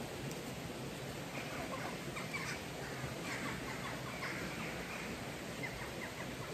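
Birds calling repeatedly in short calls over a steady background hiss.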